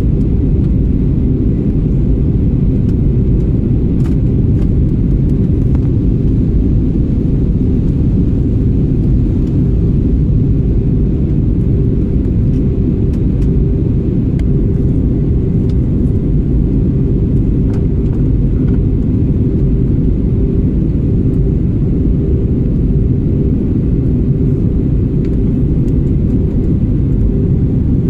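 Steady low rumble of a jet airliner's engines and airflow heard inside the passenger cabin on the night approach to landing, with a faint steady hum over it.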